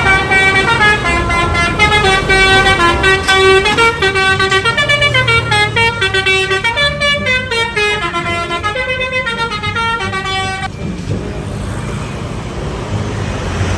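A bus telolet horn, a multi-tone air horn, plays a stepping tune of short notes. After about ten and a half seconds it gives way to a steady rushing noise over a low rumble.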